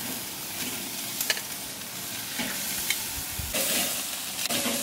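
Meat and halloumi sizzling on a hot barbecue grill, a steady frying hiss with a few light clicks; the sizzle swells briefly near the end.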